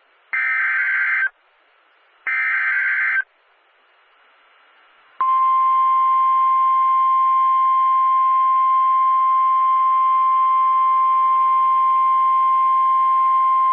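Emergency alert SAME header data bursts: two harsh, buzzy digital screeches, each about a second long and a second apart. About two seconds later comes the NOAA Weather Radio 1050 Hz warning alarm tone, one loud steady tone held about nine seconds, signalling the start of a new severe thunderstorm warning broadcast.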